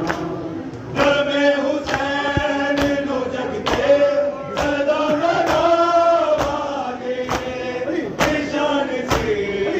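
Men chanting a mourning lament, the voice holding long gliding notes, with sharp slaps of hands striking bare chests in time about once a second: Shia matam.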